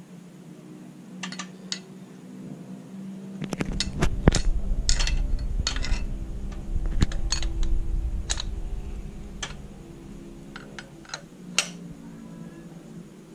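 Light metallic clicks and clinks of hands handling parts at a Vespa engine's bare aluminium crankcase, around the crankshaft oil seal. A low rumble builds from about three and a half to nine seconds in.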